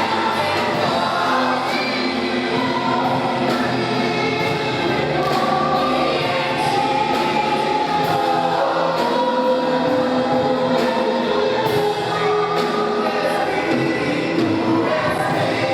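Choir and congregation singing a gospel worship song with band accompaniment and a steady beat.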